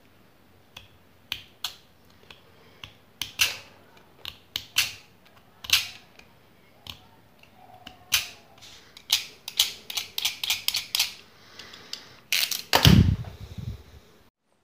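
Utility knife blade scraping and shaving at a spoon handle in short, irregular strokes that come faster after the middle, with a heavier knock about two thirds of the way through.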